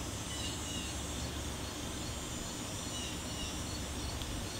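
Steady outdoor background noise with a low hum, and a few faint, short, high chirps scattered through it.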